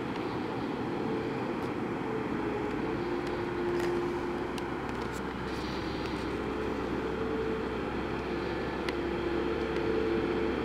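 Heavy mining machinery running steadily: the diesel engines and hydraulics of a Liebherr R 9350 excavator loading a Komatsu HD785-7 haul truck. A dense, even hum carries a whine that comes and goes and shifts in pitch, with a few faint ticks.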